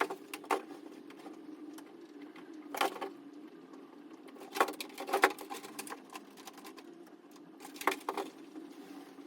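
Scattered clicks and knocks of hard objects being handled, in clusters about half a second, three, five and eight seconds in, over a steady low hum.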